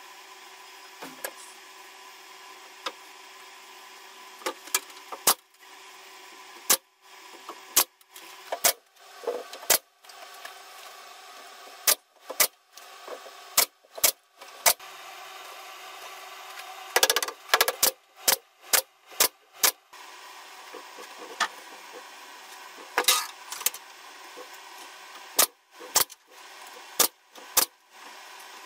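Pneumatic brad nailer firing brads into pallet-wood railing: a string of sharp shots at irregular spacing, with a quick run of them in the middle.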